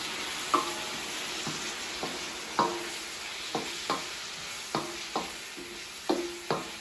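Vegetable stir fry sizzling in a wok while being stirred, with about ten knocks of the utensil against the pan, each giving a short metallic ring, at irregular intervals of half a second to a second.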